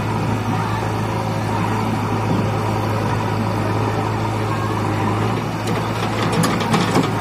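JCB 3DX backhoe loader's diesel engine running steadily as the backhoe arm works. A short run of clatters comes near the end as the bucket dumps sand into a tractor trolley.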